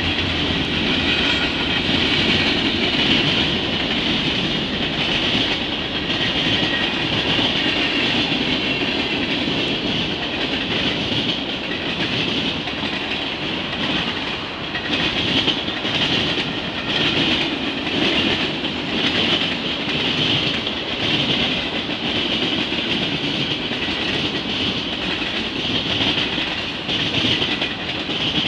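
The cars of a mixed freight train rolling past: a steady, loud rumble of steel wheels on rail with a hissing ring above it, and a faint regular clacking over the rail joints in the middle stretch.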